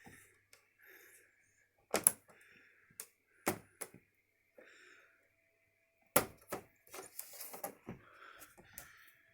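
Plastic trim clips on a TV's backlight frame snapping free as their tabs are prised up one after another. It is a string of sharp clicks and snaps with faint plastic scraping between them, the loudest about two seconds in and again about six seconds in.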